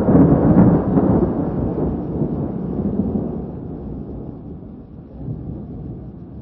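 Distant thunder: a low rumble that starts suddenly, rolls with a few surges over the first three seconds, then slowly fades away.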